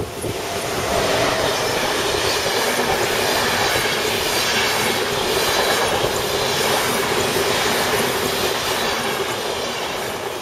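ÖBB Railjet passenger coaches running past at speed: a loud, steady rush of wheels on rail with a steady hum underneath, easing off near the end as the last coach goes by.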